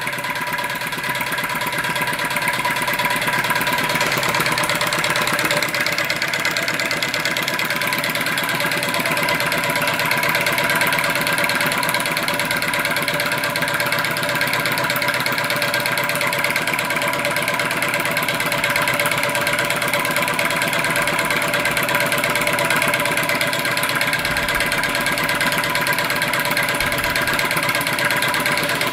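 Scratch-built, spirit-fired flame licker (vacuum) engine running steadily at speed with an even, fast mechanical patter and a few steady tones; it runs very smooth and very quiet.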